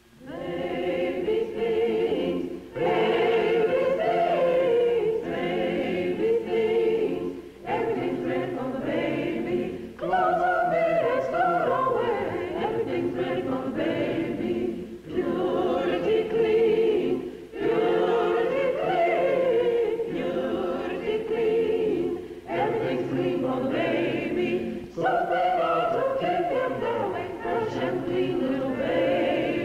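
Choir of voices singing unaccompanied, in phrases of a few seconds with brief pauses between them.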